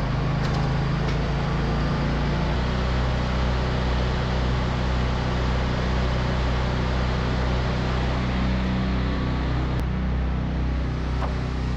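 Wood-Mizer LT40 band sawmill's engine running steadily.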